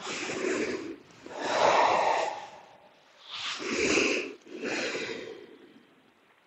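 A person breathing slowly and audibly in and out during a tai chi breathing exercise: four long breath sounds, the loudest about two seconds in.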